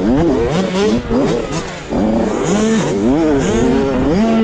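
Onboard 65cc two-stroke motocross bike engine revving hard, its pitch climbing and dropping over and over as the throttle opens and shuts through the gears.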